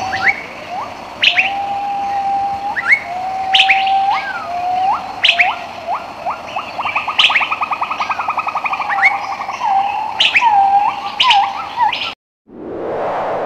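Several birds singing: steady whistled notes, upward-sweeping calls, a rapid trill and sharp high chirps. About twelve seconds in the birdsong cuts off suddenly, and a synthesizer sweep falling in pitch begins.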